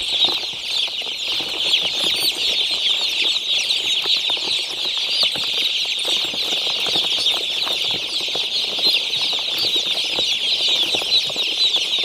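Dozens of day-old broiler chicks peeping together in their crates: a continuous, dense, high-pitched chorus of short falling cheeps.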